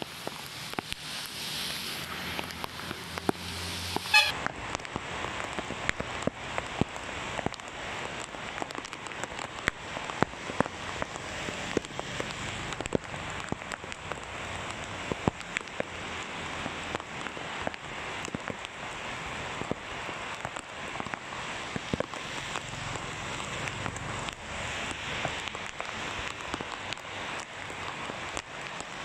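Heavy rain falling on a wet paved road, a steady hiss of rain with many sharp raindrop ticks scattered through it. The sound changes abruptly about four seconds in.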